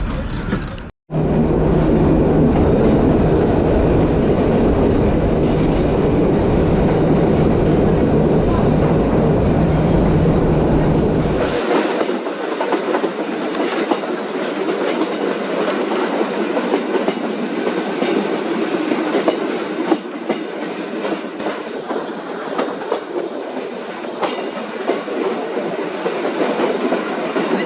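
Tourist train running on rails, with the wheels clattering over the track. In the first part a steady low hum runs under the clatter. After a cut about 11 seconds in, the low hum is gone and a brighter rattle with frequent clicks continues.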